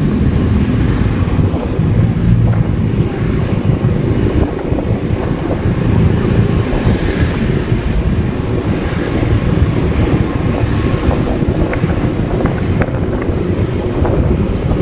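Wind buffeting the microphone of a moving motorcycle, a steady low rumble with engine and road-traffic noise underneath.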